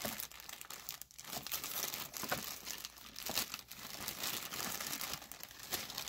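Clear plastic bag crinkling as it is handled, the power supply and cord inside rustling, an irregular run of crackles.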